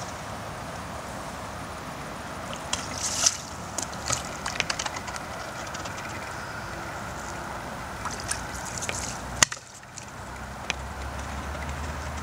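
Water sloshing and splashing in short irregular bursts over a steady rushing background, with a sharp click and a brief dip about three quarters through and a low steady hum setting in near the end.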